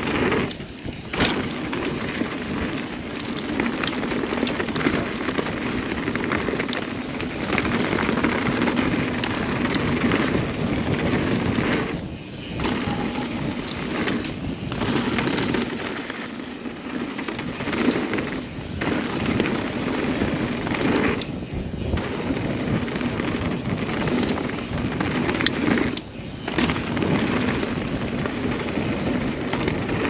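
Mountain bike riding down a dirt and rock trail: tyres rolling and crunching over the ground, with the bike rattling and clicking over bumps. The steady rush breaks off in a few brief lulls.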